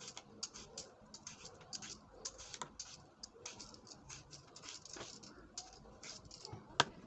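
Many faint, quick, irregular crisp clicks and crackles, several a second.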